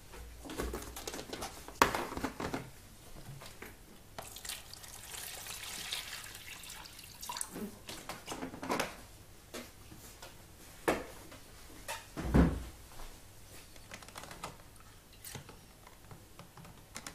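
Water splashing and dripping in plastic tubs of rinse water, with a stretch of steady splashing about five seconds in and several sharp knocks of the tubs and containers being handled; the loudest knock comes about twelve seconds in.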